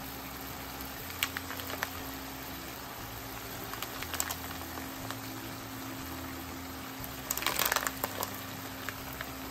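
Chicken, spinach and sun-dried tomatoes simmering in a frying pan with a steady low sizzle, while mini gnocchi are dropped in by hand with a few light ticks. A short cluster of clicks and rustles comes about three-quarters of the way through.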